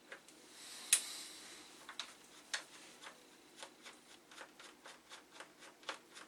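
Screws being undone from a Macintosh II drive chassis: a sharp click about a second in with a short scrape after it, then a run of light clicks, about two or three a second.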